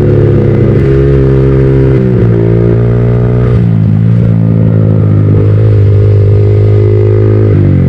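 Yamaha MT-15's 155 cc single-cylinder engine through an aftermarket full-system exhaust, running loud under riding, its pitch stepping up and down several times as the throttle and gears change.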